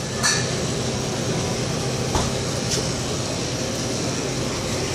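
Steady rushing noise with a low hum and a few light clicks.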